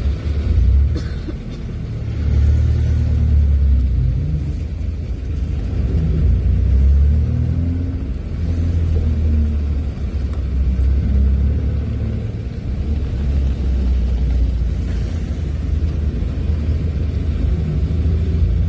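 Low rumble of a car driving in slow traffic, heard from inside the cabin, swelling and dipping as it goes.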